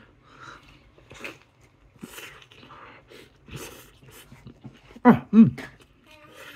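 A young child's wordless vocal sounds: breathy noises, then two short high squeals that fall in pitch, about five seconds in.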